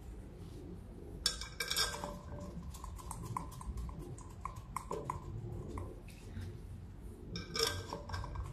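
Metal parts clinking and rattling against each other in two short bursts, about a second in and again near the end, with light ringing.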